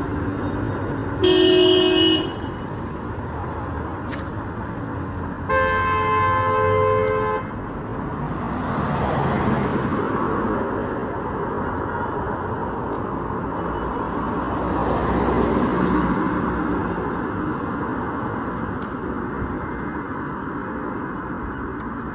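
Road traffic: vehicles passing in a steady rush that swells and fades as they go by. Two car horn blasts sound over it, a short one about a second in and a longer one of about two seconds around six seconds in.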